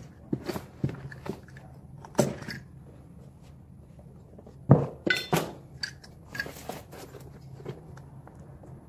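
Crunchy scraping and cutting of a utility knife trimming carpet tile along a stair nosing, with scattered knocks of hands and tools on the stair. About five seconds in comes a louder knock followed by a short metallic clink.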